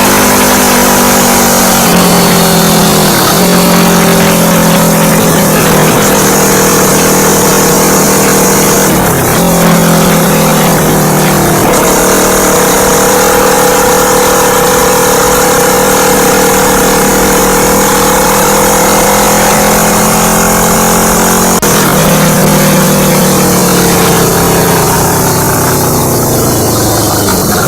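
Kawasaki Vulcan S 650's parallel-twin engine heard through a Delkevic full exhaust system while riding, loud and close. The engine note dips briefly a few times, as at gear changes, then winds down steadily near the end as the bike slows.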